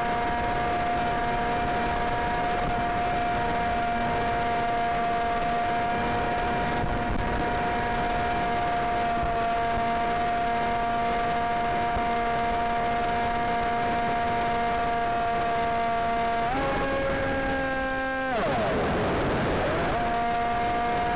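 Electric motor and propeller of a Blade Theory W flying wing giving a steady whine over radio hiss, heard through the onboard FPV link. About three-quarters of the way through the pitch steps up, wavers for about two seconds, then settles again.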